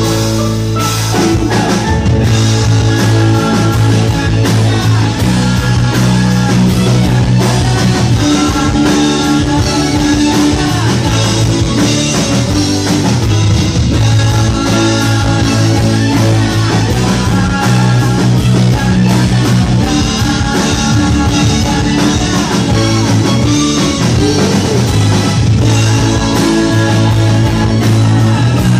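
Live band playing a pop-rock song: a man singing lead over strummed acoustic guitar, electric guitar, bass and drums.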